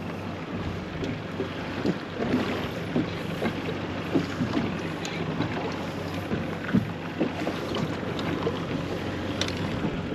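Wind buffeting the microphone on a small fishing boat, over a low steady hum and scattered light knocks.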